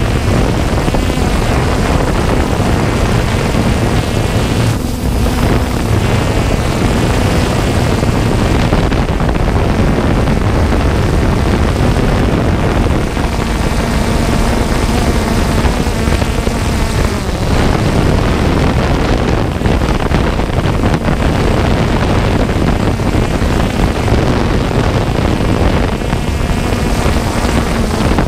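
3DR Solo quadcopter's electric motors and propellers buzzing steadily, heard from the GoPro mounted on the drone, mixed with wind rush. The motor pitch shifts briefly a few times as the drone manoeuvres.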